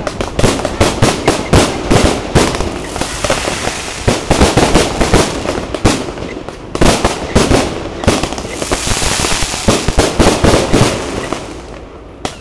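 Aerial fireworks display: a rapid, dense volley of shell bursts and bangs, with a stretch of hissing crackle about two-thirds of the way in. The bangs thin out and grow quieter near the end.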